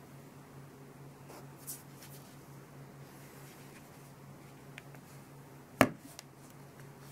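Faint handling noise, small taps and rubs, over a faint steady low hum, with one sharp click about six seconds in.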